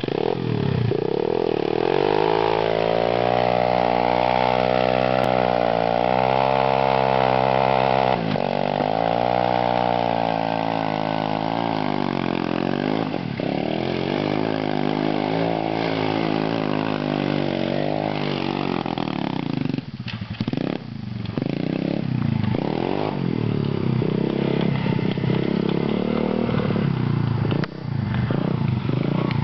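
Pit bike's single-cylinder engine revved hard and held high while the rear tyre spins in the dirt for burnouts and donuts, the revs rising and falling with the throttle. The engine drops away briefly twice in the second half before picking up again.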